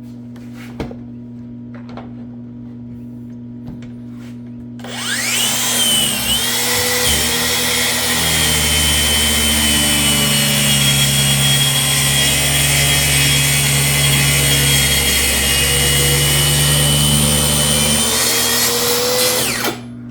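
Electric power saw spinning up with a rising whine about five seconds in, then running under load as it cuts through a hard black walnut slab, easing off near the end and shutting off suddenly. A few faint knocks come before it starts.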